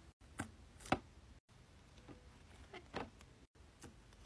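Bubbles of a small silicone pop-it fidget toy, coated in several layers of dried clear nail polish, being pressed in one at a time: several quiet, sharp pops spaced about a second apart.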